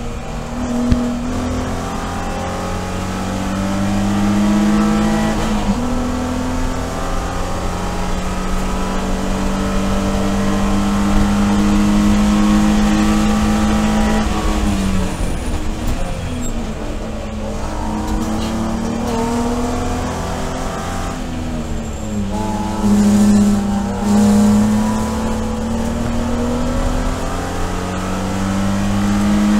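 Cockpit sound of a BMW E46 330i-based race car's 3.0-litre inline-six under full throttle. The revs climb with an upshift about six seconds in, then the engine note falls away under braking around halfway. After two short, loud bursts of revs on the downshift into the next corner, it accelerates again near the end.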